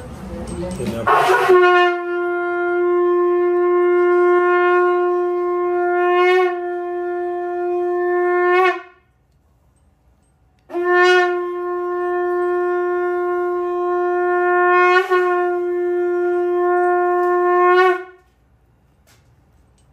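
Conch shell (shankh) blown in two long, steady blasts of about seven seconds each, with a pause of about two seconds between them. Each blast ends with a brief upward flick in pitch.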